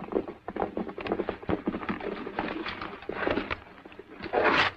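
Hooves of several horses clattering irregularly on the ground as riders come in and pull up, with a louder rushing noise shortly before the end.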